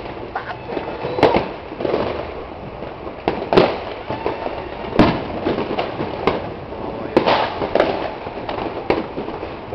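Fireworks and firecrackers going off one after another: a dense run of sharp bangs and crackles, the loudest about one, three and a half, and five seconds in.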